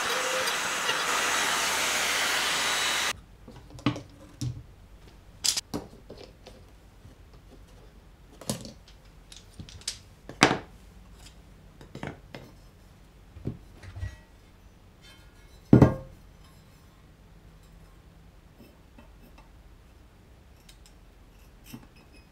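Makita 18 V cordless trimmer (compact router) running with a steady whir, cutting off abruptly about three seconds in. Then scattered light knocks and clicks of aluminium fence parts being handled and fitted on the bench, the loudest a sharp knock in the second half.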